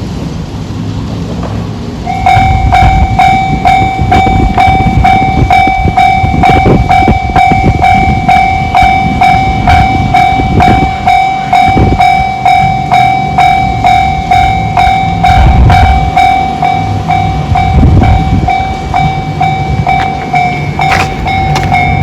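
Japanese level crossing alarm with the JR standard warning tone starting about two seconds in and ringing on steadily: a bright repeated clang, a few strikes a second, signalling that the crossing is closing for an approaching train. A low rumble runs underneath.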